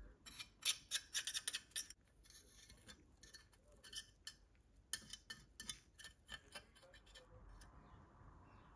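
A run of sharp clicks and light taps, quick and close together for the first couple of seconds, then sparser and softer, dying away near the end.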